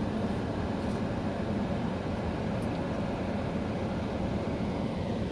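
Steady low hum and hiss inside a car cabin, from a stationary car with its engine and ventilation running.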